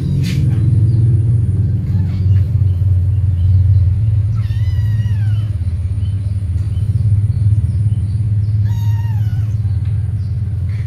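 A cat meowing twice, about four and nine seconds in; both meows are high-pitched and fall in pitch. A steady low rumble runs underneath and is the loudest sound throughout.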